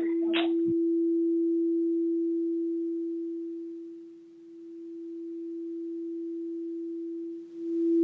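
A single steady pure tone, like a sustained tuning-fork note, held throughout. It fades almost away about four seconds in, swells back, dips briefly near the end and comes back louder.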